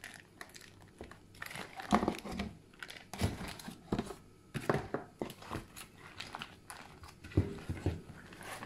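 Plastic food bag of pickled white radish in sticky glutinous-rice-flour paste handled and squeezed by hand, giving irregular crinkles and crackles of the plastic.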